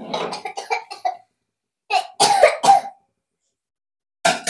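A person coughing in three short bouts, each a quick run of coughs.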